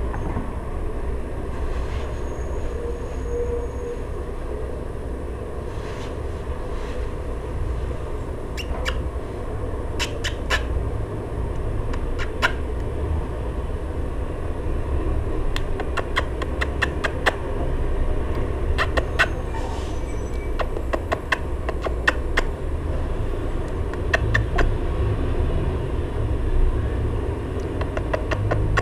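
Dwarf hamster stirring in wood-shaving bedding: scattered sharp crackles and clicks of shavings being disturbed, coming in clusters from about a third of the way in, over a steady low rumble.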